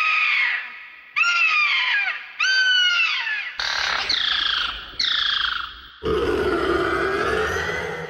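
Imagined pterosaur calls from a sound effect: six harsh cries about a second apart, each falling in pitch. A low rumble runs under the later cries, and the last one is drawn out longer.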